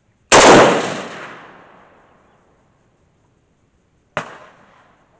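A Century Arms CETME C rifle in .308 (7.62x51 NATO) firing: one very loud shot about a third of a second in, ringing out for about two seconds. A second, much quieter and shorter gunshot follows about four seconds in.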